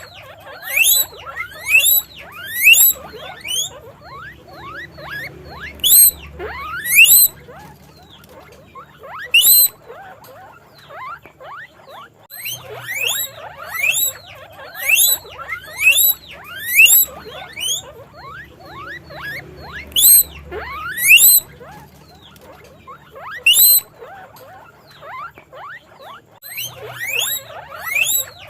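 Guinea pig wheeking: repeated short, high squeals that rise in pitch, coming in quick runs of several a second with short pauses between the runs.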